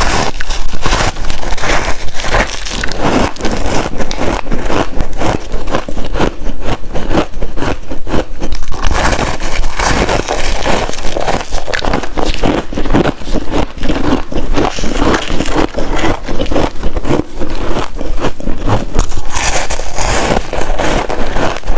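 Biting and chewing soft chunks of freezer frost: a dense, uneven run of crunching and crackling.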